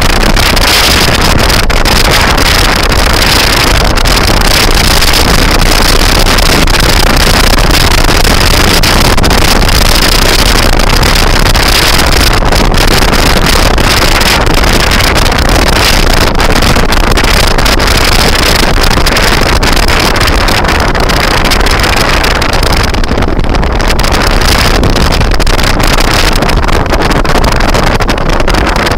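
Heavy wind buffeting the microphone of a moving scooter, loud and steady, with a steady high-pitched whine under it.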